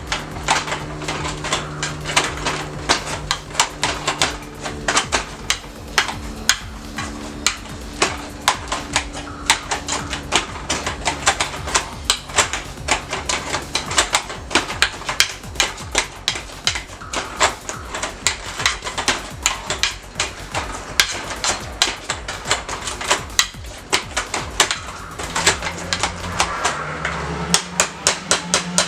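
Boiled sweet potato and pumpkin being mashed in a pot with butter: a masher knocking and clattering against the pot, several irregular strikes a second throughout.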